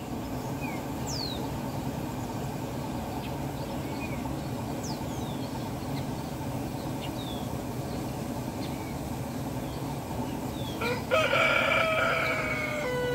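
A rooster crows once, loudly, for about two and a half seconds near the end, over a steady low rumble from the silo's grain-loading spout pouring rice into the trailer. A few small birds chirp briefly.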